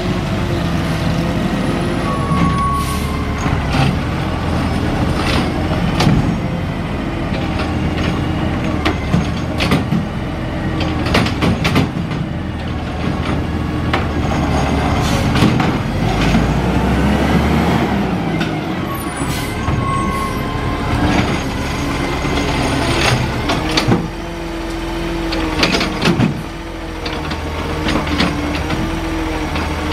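A 2015 Autocar ACX garbage truck with a McNeilus ZR automated side-loader body runs steadily, its engine rising and falling in pitch as it pulls up and works the hydraulic arm. The arm grabs a cart, lifts it and tips it, among repeated clanks, knocks and short hisses.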